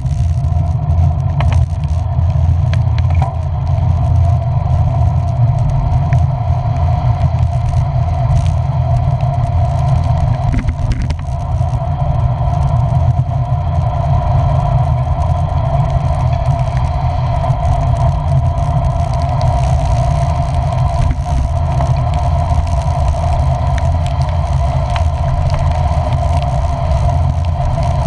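Steady running noise of a vehicle heard from on board while riding in the rain: a constant low rumble with a steady mid-pitched hum, holding an even speed.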